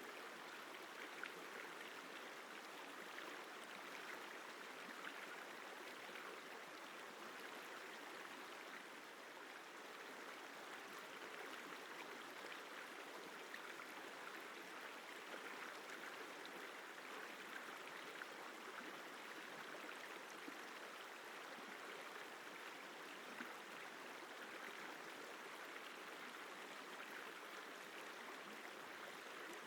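River water flowing steadily: a constant, even rushing with no breaks or changes.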